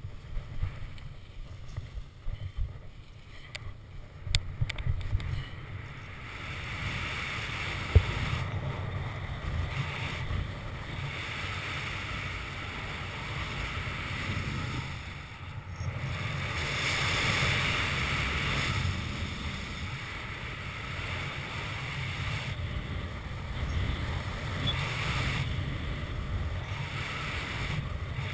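Wind rushing over a body-mounted camera's microphone during a speed-wing launch and flight: uneven thumps during the first few seconds of the launch run, then a steady rush of air with gusts. A single sharp click about eight seconds in is the loudest sound.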